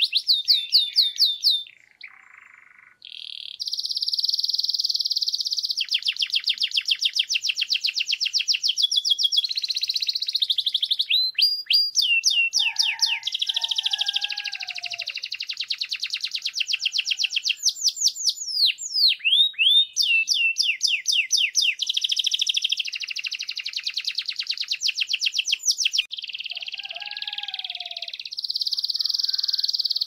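Canary singing a long, rolling song of rapid trills and sweeping whistled notes, with a brief pause about two seconds in.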